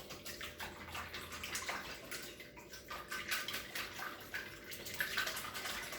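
Whisking eggs into milk and melted butter in a steamer dish: rapid, irregular clicks of the whisk against the dish with liquid sloshing.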